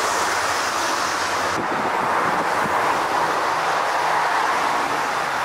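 The four jet engines of an Emirates Airbus A380 running during the landing roll on the runway, a steady loud rush, with wind buffeting the microphone. The high hiss drops off suddenly about a second and a half in.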